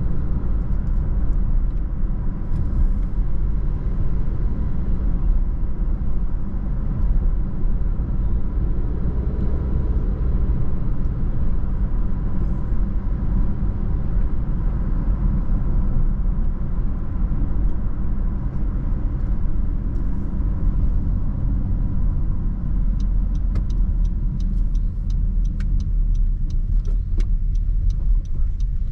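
Car driving along with a steady low road and engine rumble; a scatter of faint clicks comes in over the last few seconds.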